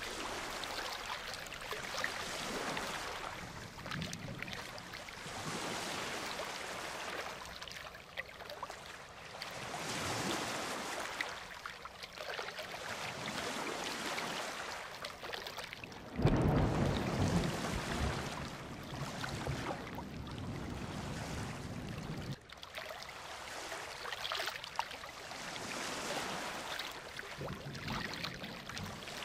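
Ocean surf breaking in repeated swells. About halfway through, a loud, deep rumble of thunder sets in, lasts several seconds and cuts off suddenly.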